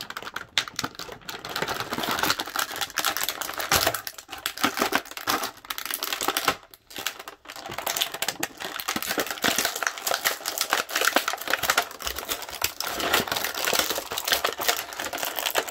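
Plastic action-figure packaging being handled and opened: continuous crinkling and crackling with many small clicks, which lets up briefly about seven seconds in.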